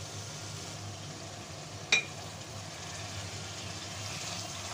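Chicken frying in tomato masala and yogurt in an aluminium kadhai, a steady sizzle as it is stirred with a spatula. A single sharp knock of the spatula against the pan about two seconds in.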